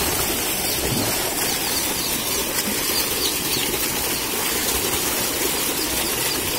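Water splashing and churning steadily as a young elephant swims and rolls about in a concrete pool.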